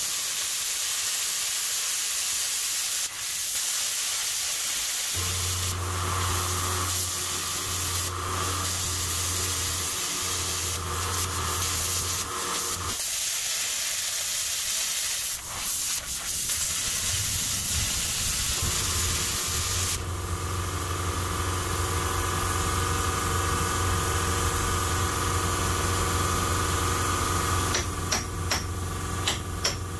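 Handheld plasma cutter cutting 10 mm steel plate freehand: a loud steady hiss. A low hum comes in about five seconds in, drops out for a few seconds midway and returns, and a few sharp clicks come near the end.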